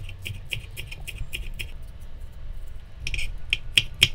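Chef's knife chopping green onions on a wooden cutting board: quick, even knocks of the blade on the board, about four or five a second, stopping about two seconds in and starting again faster near the end.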